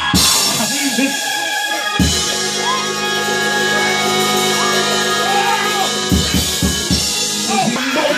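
Church music: drum kit hits and a long held chord, with voices calling out over it.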